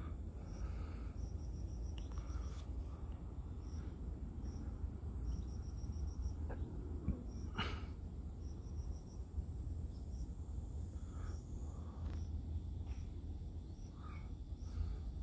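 Insects singing outdoors: a steady high-pitched buzz with short trains of quick chirps, over a steady low rumble, and a single sharp click about eight seconds in.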